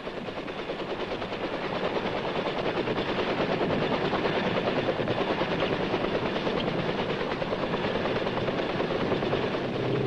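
Huey helicopters in flight, their rotors making a rapid, steady chop that grows louder over the first few seconds, then holds.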